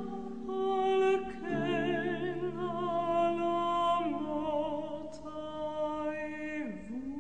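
Slow music: a singing voice with vibrato holding long notes over lower sustained notes, the melody moving to a new note every couple of seconds and swooping down and back up near the end.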